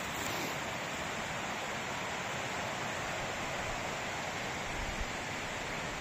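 Steady, even rush of a fast-flowing woodland stream, with one brief low bump about five seconds in.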